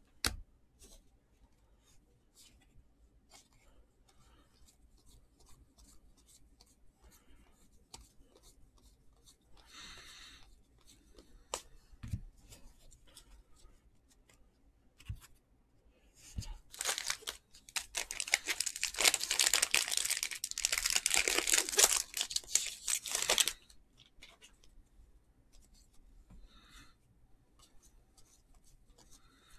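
A trading-card pack's wrapper being torn open: a loud crinkling rip lasting about seven seconds, starting a little past halfway. Before and after it there are only faint clicks of cards being handled.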